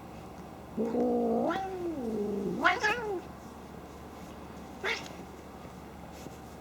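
A domestic cat yowling during rough play: one long low pitched call that sags and then sweeps up into a higher cry about two and a half seconds in, then a short sharp snort near five seconds.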